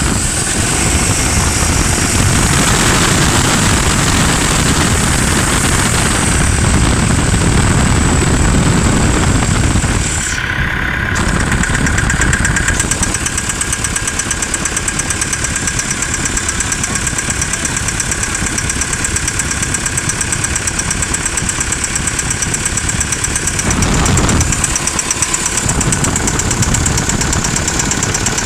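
Perkins diesel engine of a JCB 4CX backhoe loader running. About ten seconds in it drops to low revs, and from there an even, regular knock runs with the engine's beat, with a short rise in revs about two-thirds of the way through. This is the knock that appears at low revs, and its cause has not yet been found.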